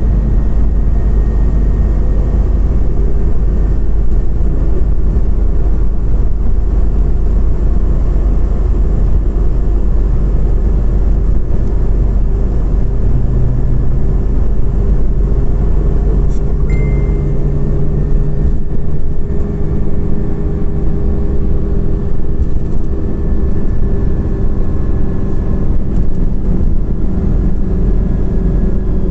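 Scania Omnicity CNG city bus on the move, heard from inside: a steady low rumble of engine and road with slowly drifting whines from the drivetrain. A click and a short high beep come a little past halfway.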